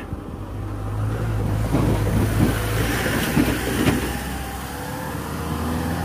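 A motor vehicle passing close by on the road: a low engine hum with tyre and road noise that swells to a peak about halfway through, then eases off.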